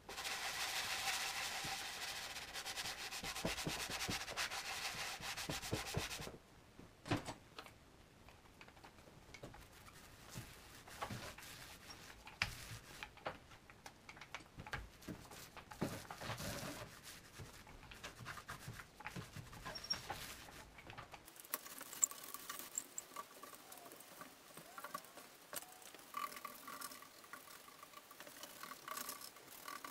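Sanding sponge rubbing over a primed pine table base for about six seconds; the rubbing then stops suddenly. After that come fainter brushing sounds and scattered light taps as paint goes on with a brush.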